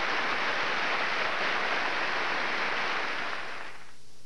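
Concert audience applauding, a steady clatter of clapping that fades away near the end.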